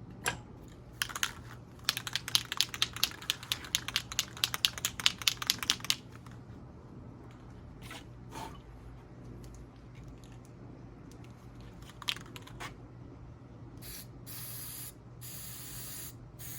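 Aerosol can of white spray paint being shaken, its mixing ball rattling rapidly for about five seconds. A few single clicks follow, then near the end come short hisses of paint spraying from the nozzle.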